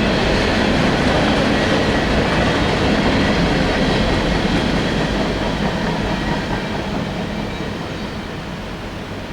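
Freight train cars rolling past on the rails, a steady rumble that fades away over the last few seconds as the train draws off.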